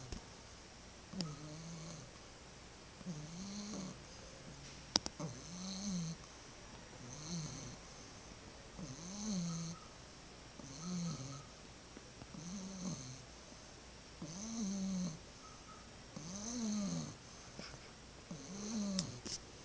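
Snoring in a slow, even rhythm, about one snore every two seconds, each a short pitched hum that rises and falls. A single sharp click about five seconds in.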